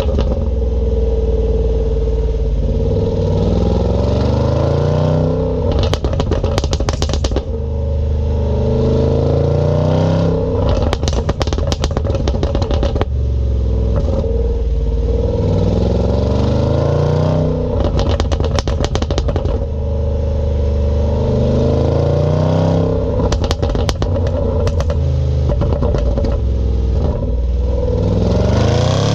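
Range Rover SVR's 5.0-litre supercharged V8 on its standard exhaust, repeatedly building revs under throttle, then popping and crackling on the overrun each time the throttle closes, about five bursts of rapid crackles.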